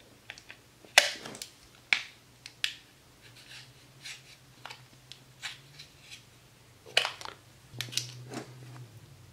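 Plastic heat-shrink wrap on an 18650 lithium-ion battery pack being cut with a small blade and peeled off. It gives sharp snaps and clicks a second or so apart, with softer crackling of the plastic in between.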